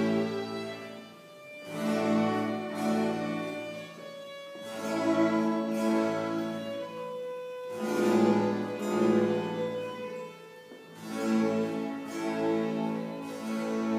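Chamber string ensemble of violins and cello playing classical music with bows, in phrases that swell and fade about every three seconds.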